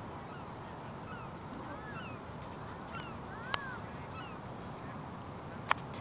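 A flock of waterbirds on the water calling, with many short, arching calls overlapping throughout. Two sharp clicks, one about three and a half seconds in and one near the end, are the loudest sounds.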